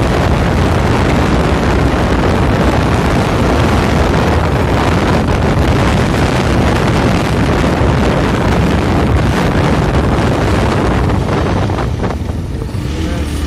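Wind rushing over the microphone of a phone held on a moving motorcycle, loud and steady, with the motorcycle's engine running underneath. The wind rush eases about twelve seconds in.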